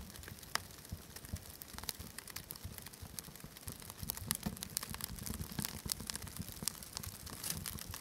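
Wood fire crackling: irregular sharp pops and snaps over a low rumble of the flames, a little busier from about halfway through.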